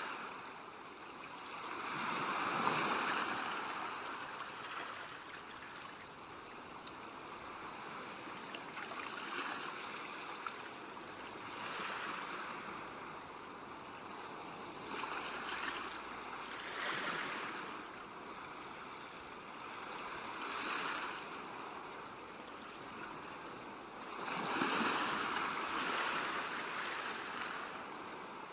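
Calm sea waves washing onto a shore, the surf swelling and falling away every few seconds, with the biggest surges about three seconds in and near the end.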